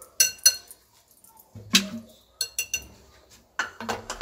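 Metal wire whisk clinking against a glass mixing bowl, then kitchenware clattering as the whisk is set down and a plastic lid is put over the bowl, with a longer clatter near the end.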